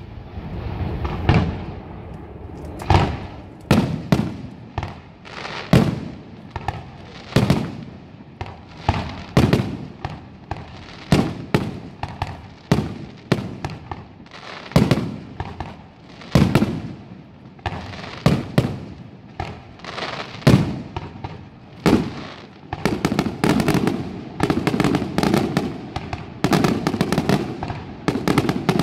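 Aerial fireworks shells bursting overhead: loud bangs about one a second, each trailing off in an echo, quickening into a dense run of rapid bangs in the last few seconds.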